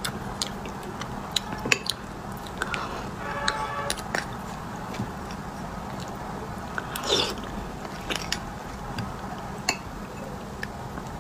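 Eating beef bone marrow: a metal spoon clicks and scrapes against the beef bones and plate, with close-miked mouth sounds of chewing and slurping the soft marrow, including a longer slurp about seven seconds in.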